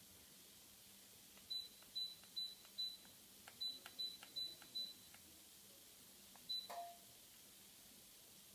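Electric fireplace insert's control unit giving short high beeps as its buttons are pressed: four beeps, a brief pause, four more, then a single beep followed by a brief lower tone. Each beep comes with a faint click just before it.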